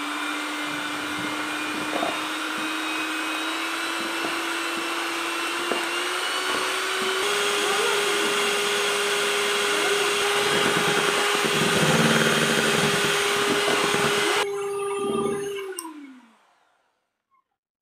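Electric hand mixer beating whipping cream in a plastic bowl: a steady motor whine that rises in pitch about six seconds in, with the beaters knocking against the bowl. Near the end the motor winds down and stops.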